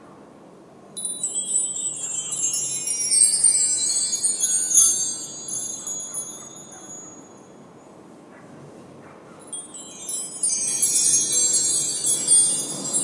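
Wind chime tinkling in two spells: a burst of overlapping high ringing notes about a second in that dies away over several seconds, then a second burst near the end, over a steady low rush.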